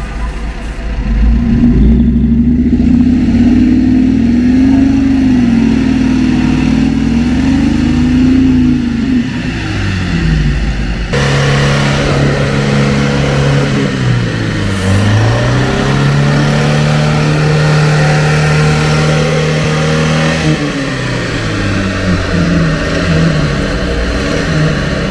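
UAZ 469's 2.5-litre engine revving hard as it churns through a mud bog on 36-inch tractor tyres, the pitch rising and falling with the throttle. The sound changes abruptly about eleven seconds in, and the revs drop and waver near the end.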